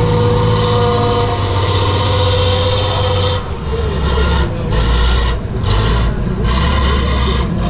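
Tatra 813 8x8 truck's diesel engine working hard under heavy load as the truck climbs a steep dirt slope, heavy exhaust smoke showing. The engine note is a loud, rough drone that dips and shifts several times in the second half as the power comes and goes.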